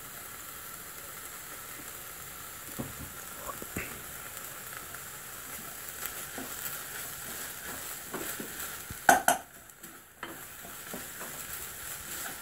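Onions sizzling in a frying pan as they are stir-fried, with a spatula scraping and clicking against the pan. About nine seconds in, two loud knocks against the pan, after which the sizzle briefly dies down before resuming.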